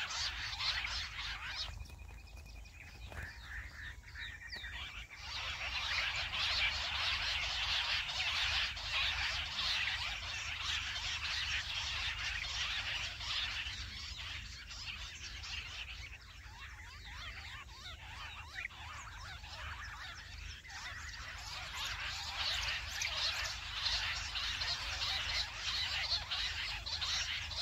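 Jungle bush quail calling in a dense, chattering chorus that swells and fades in waves. It is quieter for a few seconds near the start and again past the middle.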